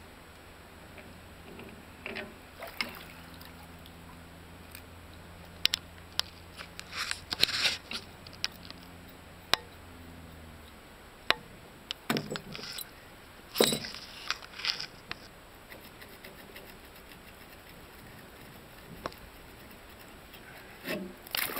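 Metal wrenches clicking and clinking on a nut and bolt of a boat-lift frame as they are worked loose, with short splashes and sloshing of lake water between the clinks. A faint low hum stops about halfway through.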